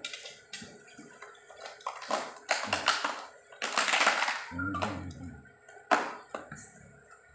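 Black plastic wrapping crinkling and packing tape being pulled and torn off an air rifle's box, in irregular bursts of rustling with sharp crackles, the loudest about four seconds in and a sharp crack about six seconds in.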